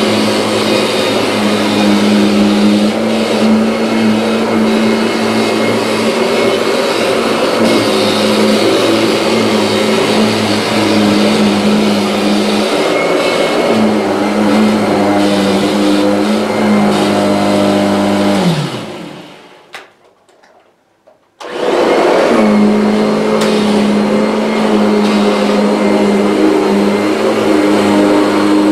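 Kirby G6 upright vacuum cleaner running with its brush roll, its motor hum wavering slightly in pitch. About two-thirds of the way through the motor's pitch falls and the sound dies away to near silence, then after about two seconds it starts again abruptly and runs steadily.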